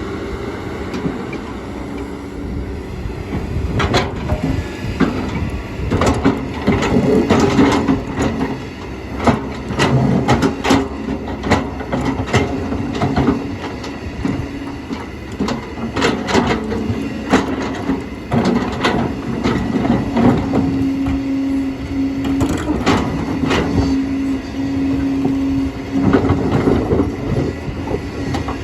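Kobelco excavator running under load, its engine and hydraulics giving a steady drone and whine, with repeated knocks, scrapes and clatters as its bucket shifts stones.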